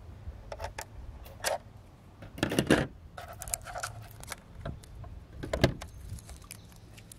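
Light, irregular clicks and clinks of a diecast model car and its packaging being handled on a table, in short clusters, over a steady low hum.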